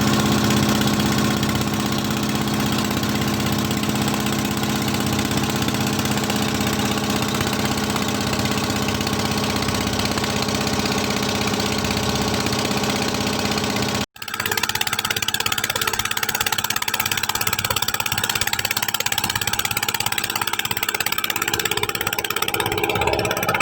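An engine running steadily at an even speed. About fourteen seconds in the sound cuts off for an instant, then a steady engine-like drone carries on with more noise in it.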